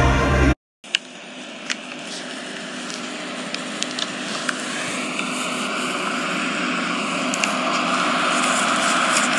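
Concert music cuts off about half a second in. It is followed by a distant stadium crowd cheering, heard from outside the stadium as a steady wash of noise that grows gradually louder, with a few faint clicks.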